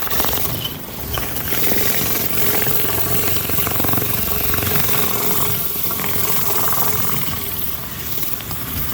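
Commercial pressure washer spraying at high pressure on a concrete patio floor, a steady hissing rush of water, blasting off weeds and mildew.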